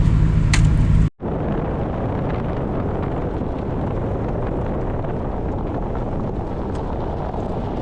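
A vehicle's steady engine hum cuts off abruptly about a second in. Rough, rumbling wind noise on the microphone follows in the snowstorm.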